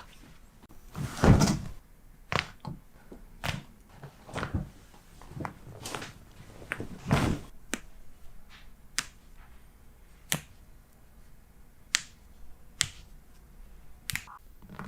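A series of sharp pops and cracks from chiropractic joint adjustments, about a dozen spaced irregularly, with two heavier thumps about a second in and about seven seconds in.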